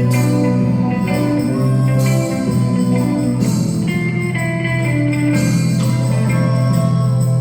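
Live instrumental ensemble playing Brazilian popular music: a melody of changing held notes over a steady low bass note.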